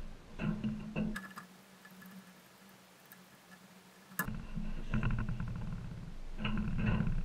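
Background guitar music. It drops out for about three seconds in the middle, and comes back with a sharp click about four seconds in.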